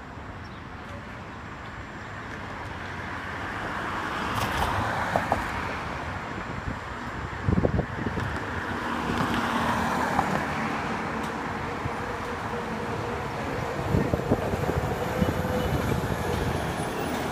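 Road traffic noise, with vehicles passing and the noise swelling over the first few seconds. A few sharp knocks come about halfway through.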